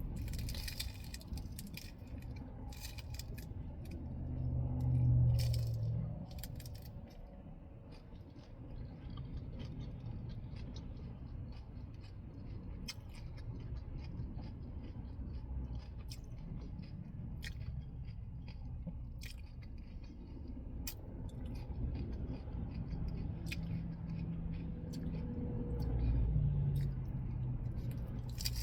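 Close-up eating sounds: chewing and crunching lettuce-wrapped tacos, with many short sharp mouth clicks. A low hum rises about five seconds in and again near the end.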